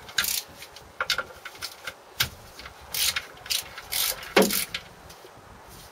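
Socket ratchet clicking in short spells as the clutch pressure plate bolts are undone, with a short falling squeak about four and a half seconds in.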